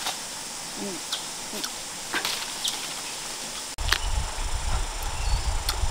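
Scattered small clicks and snaps of handling and movement among branches and leaves over a steady high hiss; about four seconds in the sound cuts briefly and a low rumble joins.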